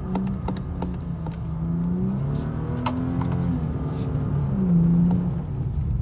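BMW 4 Series' N55 turbocharged straight-six heard from inside the cabin while driving, its revs rising and falling a couple of times and loudest about five seconds in, with a few light ticks.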